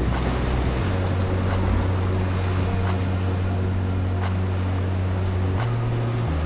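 Steady low wind rumble on the microphone over ocean surf washing against jetty rocks.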